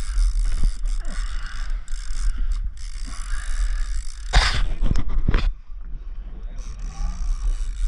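Overhead game-fishing reel being wound steadily as a hooked fish is cranked up toward the boat. A low rumble runs underneath, with a louder rush of noise about four and a half seconds in.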